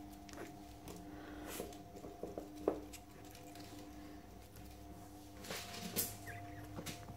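Soft rustling and scattered light knocks of a chihuahua puppy moving about on a fleece blanket in its pet bed, with one sharper knock nearly three seconds in, over a faint steady hum.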